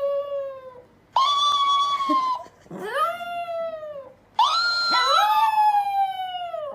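A pet's long, drawn-out howling calls: four in a row, each sliding down in pitch at its end, the last the longest.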